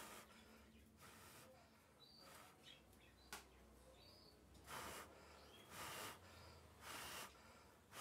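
Faint canary chirps, a few short high calls, in a quiet room. Soft puffs of noise come about once a second in the second half and are the loudest thing, with a single click a little after three seconds in.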